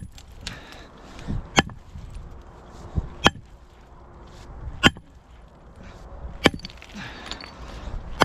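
Iron-handled sledgehammer striking a large rock over and over, about one sharp blow every second and a half, as it is swung to split the rock in two.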